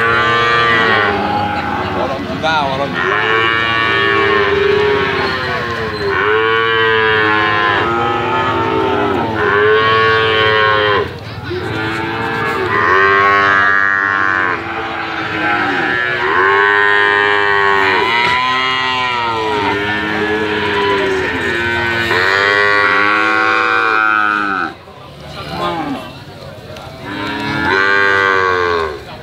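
Calves mooing (bawling) again and again, one call hard on another and often overlapping, from several animals at once; after a short lull near the end comes one more call.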